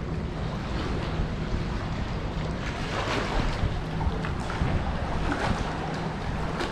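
Wind blowing across the microphone: a steady rushing noise, heaviest in the low end, with a faint steady hum underneath.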